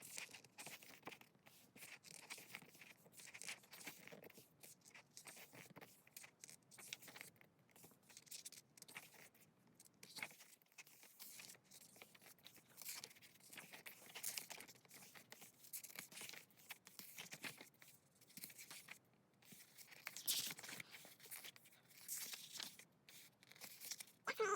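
Quiet, scratchy rustling, crinkling and tearing of paper and plastic as the contents of a K-pop album are handled and unpacked, with a few louder rustles near the end.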